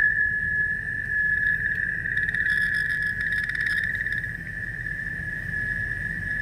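Steady high-pitched electronic tone from the marine MF/HF radio console over a low hum, with a run of faint rapid clicks from about two to four seconds in.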